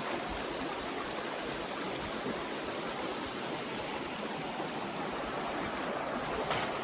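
Steady rushing and babbling of a shallow forest stream flowing over rocks.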